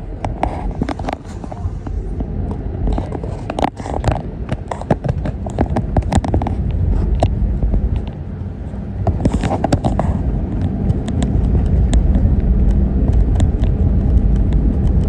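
Airbus A320 engines heard from inside the cabin: a deep, steady rumble that grows louder about ten seconds in as thrust comes up for takeoff, with many sharp clicks and rattles throughout.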